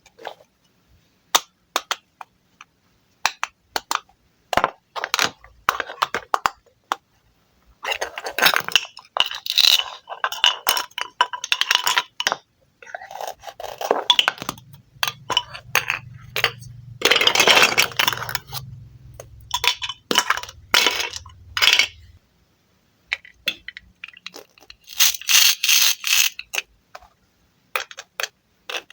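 Wooden toy fruit being cut with a knife: sharp taps and clinks of wooden pieces on a board, broken by several stretches of dense rasping scraping as pieces are sliced and pulled apart.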